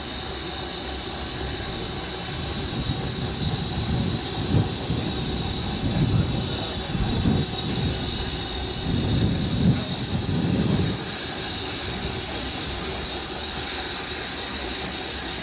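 Steam-hauled train running past, with a steady high-pitched ring or squeal and a run of heavy low beats between about four and eleven seconds in.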